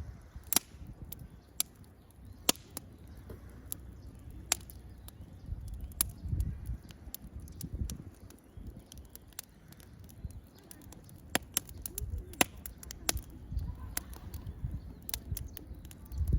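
Wood fire crackling: sharp, irregular pops and snaps, about a dozen, over a low, uneven rumble.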